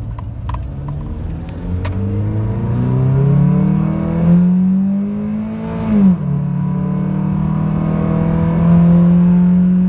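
Honda H22A4 four-cylinder engine accelerating under load, heard from inside the cabin: its note climbs for several seconds, drops sharply as the automatic transmission upshifts about six seconds in, then holds high again. It pulls cleanly on a newly fitted coil-on-plug ignition kit.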